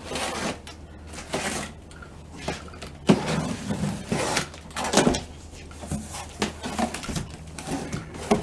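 Cardboard box being opened and its packaging handled: irregular rustling and scraping, with a couple of sharp knocks.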